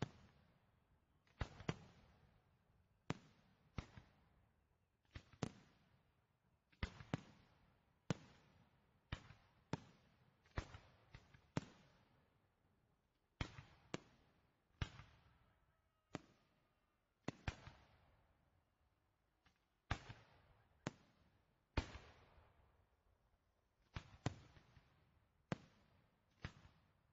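Fireworks exploding in a steady series of sharp bangs, about one every second or so, each trailing off in a short echoing tail.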